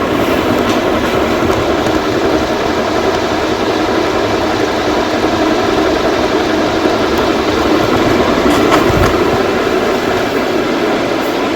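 Konica ceiling fan running, its motor giving off a loud, steady noise, with a few faint ticks about eight seconds in.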